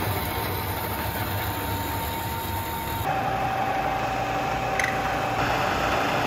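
Vertical metal-cutting bandsaw running as a metal plate is fed into the blade, with a steady whine. About three seconds in it gives way to a vertical milling machine's end mill cutting a metal part, with a slightly lower steady whine.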